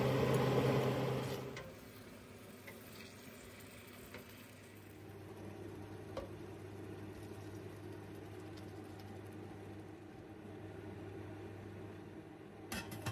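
Chicken pieces sizzling in a stainless steel pot as they are stirred with a wooden spoon, the hiss dropping away after about a second and a half. About five seconds in, liquid is poured into the pot from a glass jar, with a steady low hum underneath. Near the end the spoon knocks against the pot two or three times.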